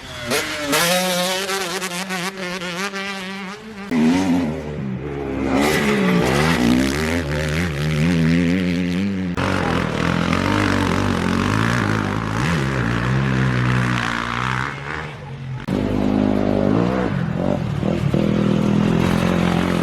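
Motocross dirt bike engines revving hard and easing off as they ride the track, the pitch rising and falling over and over. The sound changes abruptly about 4, 9 and 16 seconds in.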